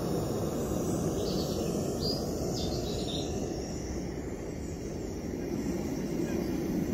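Steady rushing of a remote-canister gas camping stove burning under an aluminium kettle. A few faint bird chirps come through about one to three seconds in.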